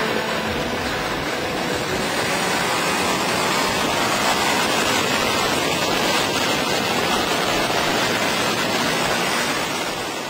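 Steady rushing wind noise on an on-bike microphone while riding at road speed, with no clear engine note heard through it; it fades out near the end.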